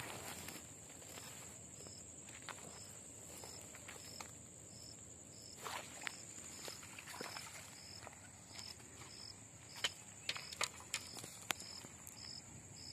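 Insects shrilling in a steady high drone, with another insect chirping in short, evenly spaced pulses a little under twice a second. Scattered sharp clicks and rustles, a few louder ones in the second half.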